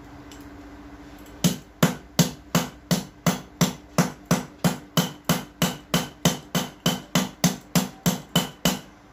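A hammer striking a USB Type-C charger on a tiled floor again and again: about twenty fast, evenly spaced blows, roughly three a second, starting about a second and a half in and stopping just before the end.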